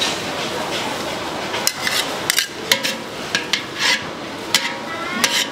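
Metal spatula scraping and clanking against a cooking pan as pad thai noodles are stir-fried, with a run of sharp irregular clinks from a little under two seconds in.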